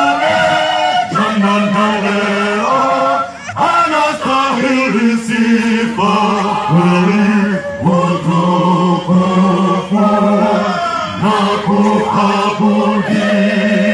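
Male choir singing a chant-like song, the voices holding notes in phrases of a second or two, with a short break about three seconds in.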